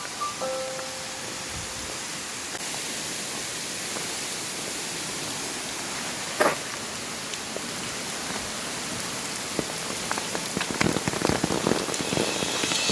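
Steady hiss of light rain, with a sharp single tick about six and a half seconds in and a denser patter of drops in the last few seconds.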